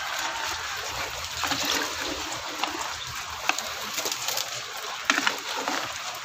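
Steady rain with scattered drips, and grain feed poured from a plastic scoop into a basin of water, splashing and pattering, about four seconds in.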